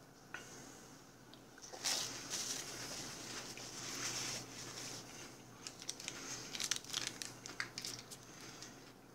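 Plastic condiment packet being torn open and crinkled in the hands. The crinkling starts about two seconds in, with a run of sharp crackles near the end.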